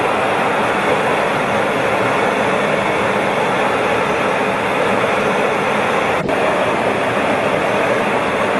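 Steady rushing noise of a military jet's engine and airflow heard inside the cockpit in flight, with a momentary dropout about six seconds in.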